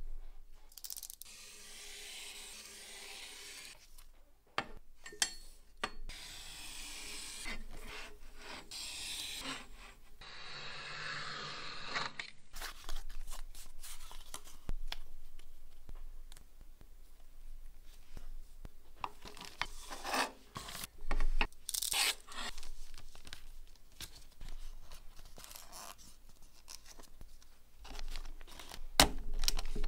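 Snap-off utility knife drawn along a metal ruler, slicing through a printed paper label sheet in long scraping strokes, followed by paper and cardboard rubbing and rustling as the cut labels are handled, with light clicks and taps.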